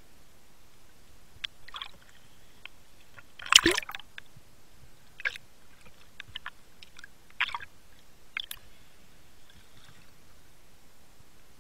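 Water sounds picked up underwater by a diving camera: scattered clicks and short gurgling bursts, the loudest about three and a half seconds in.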